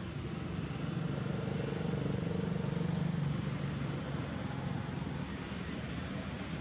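Low engine hum of a motor vehicle over steady background noise, growing louder about a second in and easing off after about three and a half seconds.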